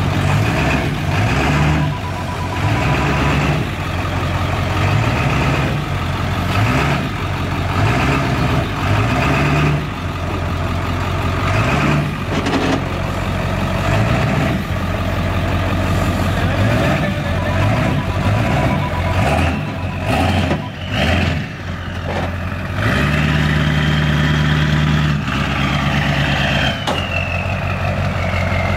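Ford pickup truck's engine revving in short repeated blips of throttle as it is driven up a trailer's ramps, then held at steadier higher revs and let down with a falling whistle near the end. A steady beeping comes and goes.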